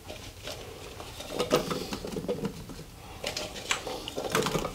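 Raw cubed potatoes being dropped by hand into a slow cooker: soft, irregular knocks and taps.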